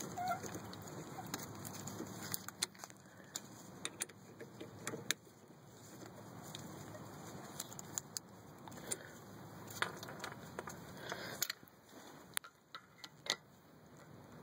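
Irregular sharp metallic clicks and clinks of a ratchet being worked on the lower slider (guide pin) bolt of a BMW X3 E83's rear brake caliper as the bolt is backed out.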